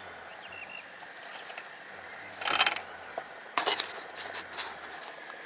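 A letter being posted into the slot of a PostNL street mailbox: paper and the slot scrape and clatter in two loud bursts about two and a half and three and a half seconds in, with smaller knocks after and a last burst at the very end.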